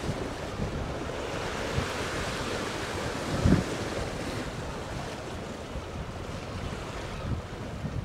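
Wind blowing across the microphone: a steady rushing with irregular low buffeting thumps, the strongest about three and a half seconds in.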